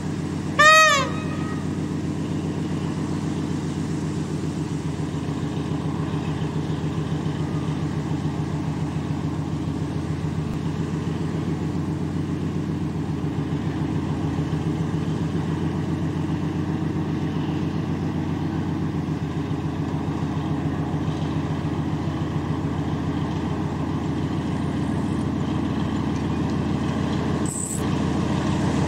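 Narrow-gauge diesel locomotive running steadily as it hauls its coaches slowly closer, the engine note growing gradually louder. A short horn blast sounds about a second in, and a brief knock comes near the end.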